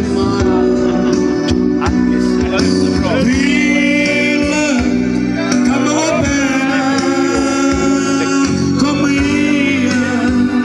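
A man singing a song over instrumental accompaniment, with sustained low notes running steadily beneath the voice.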